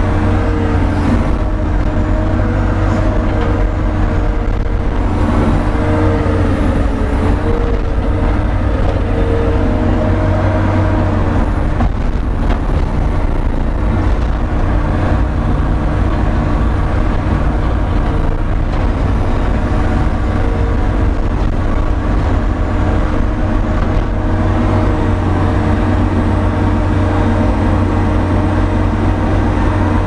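New Holland C185 compact track loader's diesel engine running steadily under load. Its hydraulics drive a converted 3-point snowblower that is throwing snow. The sound is a continuous low rumble with a steady hum.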